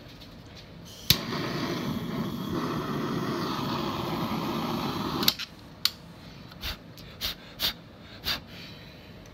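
Kitchen blowtorch lit with a sharp click about a second in, its flame hissing steadily for about four seconds as it toasts marshmallows, then cut off suddenly. Several short, sharp clicks follow.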